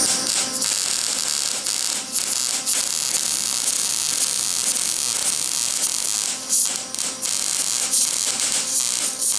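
MIG welder arc crackling and sizzling as it lays a bead on thin steel. It strikes up suddenly and runs with brief breaks between passes.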